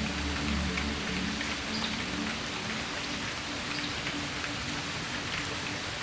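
Steady rain falling, with scattered louder drops among the hiss. Soft music fades out in about the first second.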